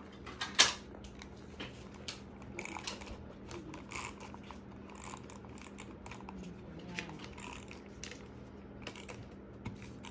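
Handheld vellum tape runner laying adhesive along paper: soft rolling and rubbing with scattered small clicks, and one sharp click about half a second in.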